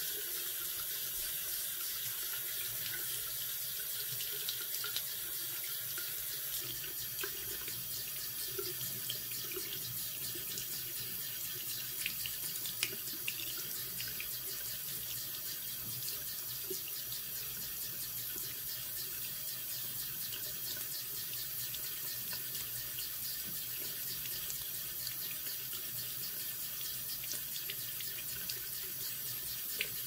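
Bathroom sink faucet running steadily into the basin. Partway through, the stream splashes over a cockatiel held in cupped hands under it, with a few small splashes.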